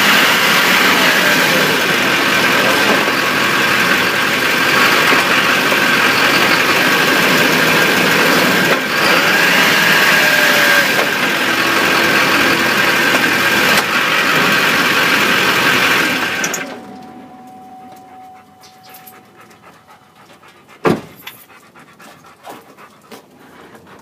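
LLY Duramax diesel truck running, heard from under the truck, a loud even noise that carries on while the driveshaft slows and stops, then cuts off suddenly about two-thirds of the way through. What follows is low and quiet, with one sharp click about four seconds later and a few faint ticks. The popping knock being chased in the driveline is not heard.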